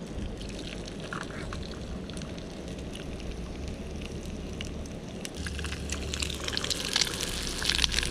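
Fish fillets sizzling and spitting in oil in a small frying pan on a gas camping stove, the crackle growing louder and denser over the last few seconds.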